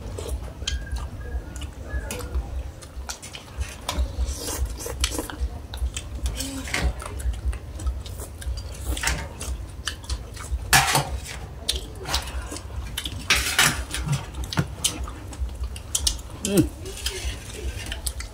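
Metal spoons clinking and scraping against a large metal tray of soupy bamboo-shoot curry as several people eat, in many short irregular clicks.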